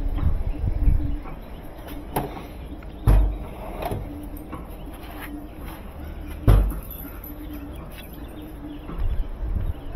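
Steel tool-chest drawers sliding and clunking as they are opened and shut, with two loud thumps about three and six and a half seconds in and lighter knocks between. Low handling bumps come at the start and near the end.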